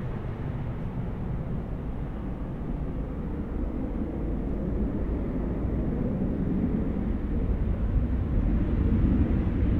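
Airbus A350-900's Rolls-Royce Trent XWB jet engines running at low taxi thrust, a steady low rumble that grows gradually louder as the airliner turns toward the camera.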